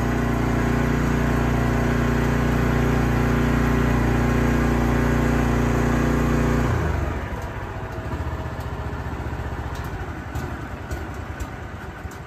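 Westinghouse J34 turbojet engine running steadily, then cutting out abruptly about seven seconds in, leaving a lower, uneven rumble with scattered crackles.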